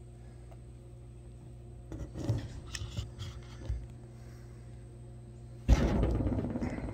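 Rustling and small knocks of a hand-held phone being moved and repositioned, then, near the end, a sudden loud rush of air on the microphone.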